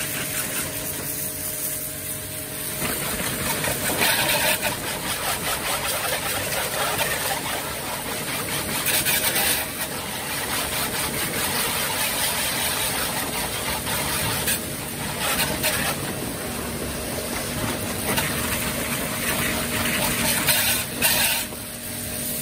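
YAMASU mini pressure washer spraying: the steady hiss of its water jet over a motorcycle, with the pump's steady tone underneath. The spray gets louder and hissier for a moment several times as the jet is moved over the bike.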